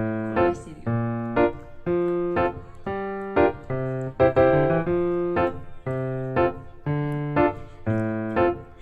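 Background piano music: chords struck on a steady beat, with an accent about once a second.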